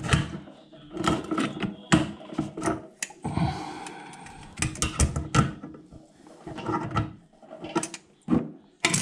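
Handling noise from hand-tightening a toilet fitting: irregular clicks, knocks and scrapes, with a longer rustle about three seconds in.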